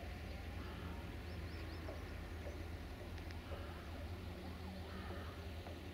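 Freight wagons rolling past on the rails, a steady low rumble, with a faint whine rising in pitch in the first second or so.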